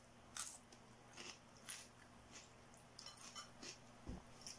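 A person chewing a mouthful of noodles, with faint wet mouth clicks and smacks every half second or so. There is a soft low thump about four seconds in.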